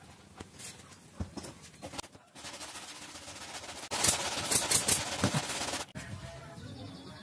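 Pneumatic brad nailer firing several nails in quick succession into a plywood corner joint, each shot a sharp crack. Under it a steady hiss starts about two seconds in and stops suddenly near the end, with light knocks of boards being handled earlier.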